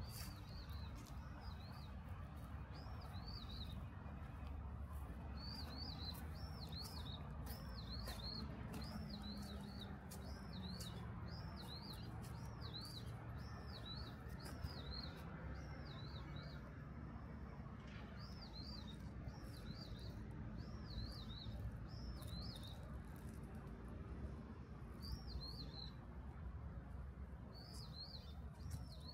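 A small songbird chirping over and over, short quick rising-and-falling notes in runs of several, with a few brief pauses, over a steady low background rumble.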